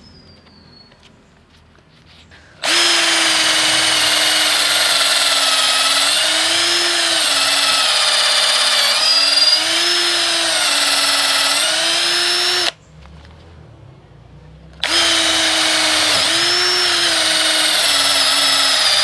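INGCO CIDLI20025 20 V cordless impact drill in drilling mode, boring a 10 mm twist bit (the chuck's maximum) into a block of wood. The motor whine starts about three seconds in and runs for about ten seconds, its pitch sagging and wavering as the bit bites. It stops for a couple of seconds, then starts again for the last few seconds.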